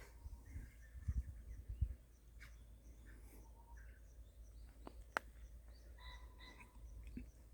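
Outdoor ambience of birds chirping on and off, with brief low rumbles on the microphone early on and one sharp click about five seconds in.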